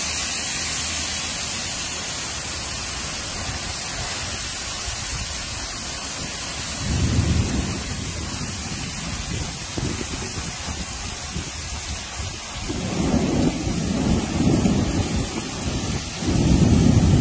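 Heavy tropical downpour, a steady hiss of rain, with low rumbles of thunder swelling about seven seconds in and again, louder, over the last few seconds.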